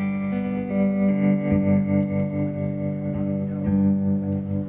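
Electric guitar played through effects, held chords ringing on in a sustained wash, the notes shifting a few times.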